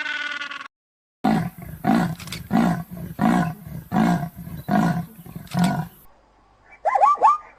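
A large animal roaring in a rhythmic series of about eight short, deep roars, roughly one every 0.6 seconds. A bleating call ends just before the roars begin, and a few short high calls sweeping up and down follow near the end.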